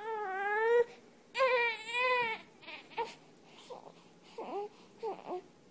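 Infant crying: two long wails in the first couple of seconds, then short, broken sobbing cries.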